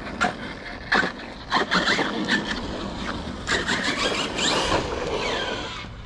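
Electric RC car running over rough ground, with scattered knocks and clatter and a whine that falls in pitch about five seconds in.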